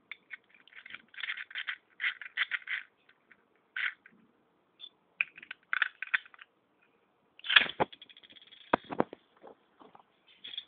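Small plastic and metal Beyblade spinning-top parts being handled, with clusters of clicking and rattling and a few louder sharp knocks about two-thirds of the way through.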